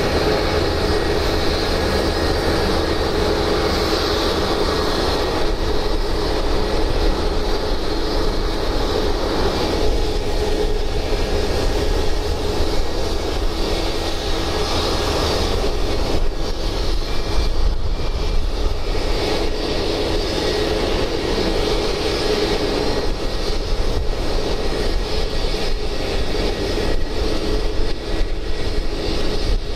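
Steady mechanical drone from de-icing trucks working beside a parked Airbus A321, with a hiss of de-icing fluid being sprayed through the boom nozzles onto the aircraft's tail.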